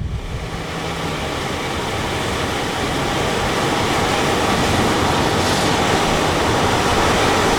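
Steady rushing storm noise of wind and rain, starting abruptly and slowly growing louder.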